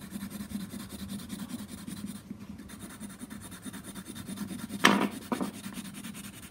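Coloured pencil scratching quickly back and forth on paper as an area is shaded in, with a brief sharp louder sound about five seconds in.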